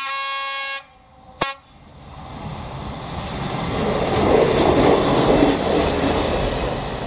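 ČD class 810 diesel railbus sounding its horn: a held blast that stops about a second in, then a short toot. The railbus then passes over the crossing, its running noise rising to a peak about four to five seconds in and fading away.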